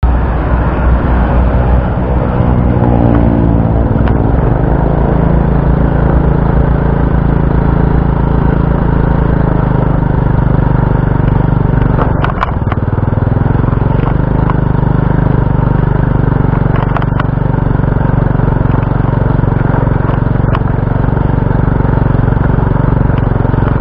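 Small motorbike engine running as the bike rides along a rough dirt-and-gravel track. It rises in pitch over the first few seconds, then holds steady, with a few sharp knocks, the loudest about twelve seconds in.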